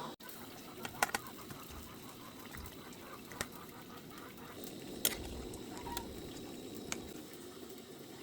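A pot of sour soup simmering with a steady low bubbling, and a few sharp clicks and taps, two close together about a second in, then single ones spread through the rest.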